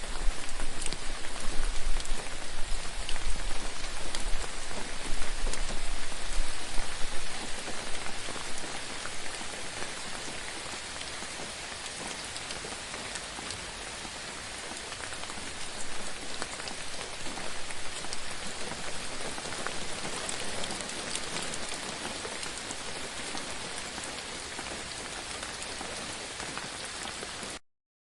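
Water of a forest stream running and splashing: a steady rush flecked with small drip-like ticks. It is louder, with a low rumble beneath it, for the first several seconds, then settles to a softer, even flow and cuts off suddenly near the end.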